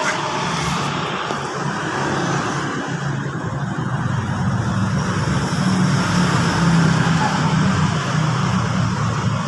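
A motor vehicle's engine running steadily with a low hum, growing a little louder about halfway through.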